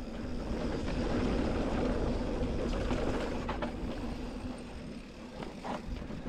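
Specialized Turbo Levo SL e-mountain bike riding fast down a rocky dirt singletrack: tyres rolling over dirt and stones and the bike rattling, with a steady low rumble of wind and ground noise on a chest-mounted camera. The noise is loudest in the first few seconds and eases off after that, with a few faint clicks.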